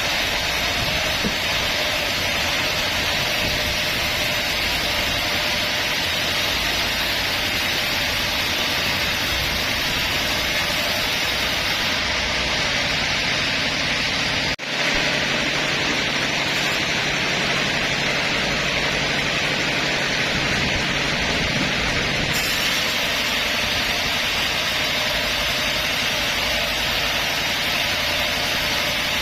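Sawmill band saw running, a steady even machine noise with a brief drop about halfway through.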